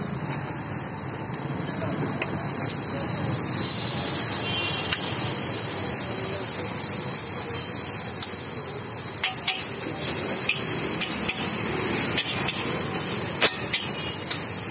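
Dosas sizzling on a flat griddle, a steady hiss, with sharp taps and scrapes of a metal spatula on the griddle coming more often in the second half.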